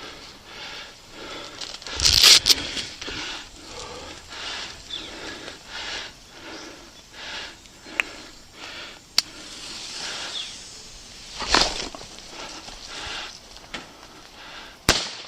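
Footsteps crunching through brush and leaves at a steady walking pace, with louder rustles of foliage or gear brushing the microphone three times, and two sharp clicks partway through.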